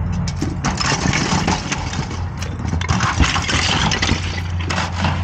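Ice being knocked and broken off: irregular knocks and cracks with scraping, over a steady low engine-like hum.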